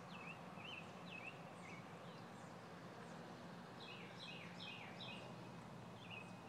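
Songbirds calling: repeated short, faint chirps, with a quick run of descending notes about four seconds in, over a steady low hum.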